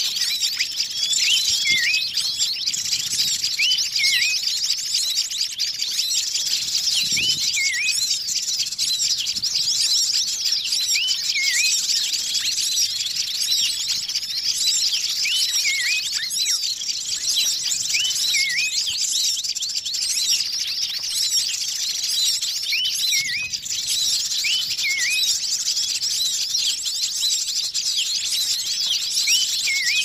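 Bird-lure recording of a noisy mixed flock of many small wild birds: dense, continuous chirping and twittering, with a short call that dips and rises recurring every few seconds.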